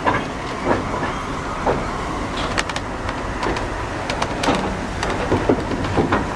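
Railway brake van rolling slowly along the track: a steady low rumble with irregular sharp clicks and clanks from the wheels on the rails.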